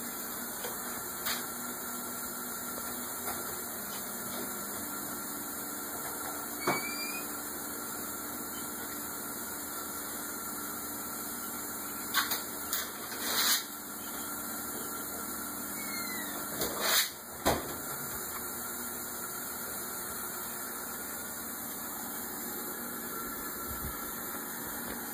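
Knocks and clatters of a kitchen refrigerator door and a glass beer bottle as a dog opens the fridge and takes the bottle out, over a steady hiss. There is a short squeak about seven seconds in, a cluster of knocks around twelve to thirteen seconds, and the loudest clatter near seventeen seconds.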